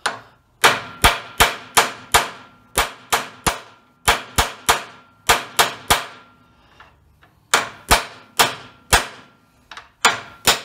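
Hammer blows on a socket used as a driver, pressing a new U-joint bearing cup into a drive-shaft yoke: sharp metallic clangs in quick runs of three to five, about two or three a second, with short pauses between runs and a faint ringing tone hanging under them.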